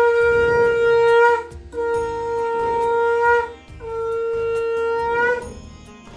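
A conch shell (shankh) blown three times in long, steady blasts, each rising slightly in pitch as it ends: the shankh sounded during a Hindu puja offering.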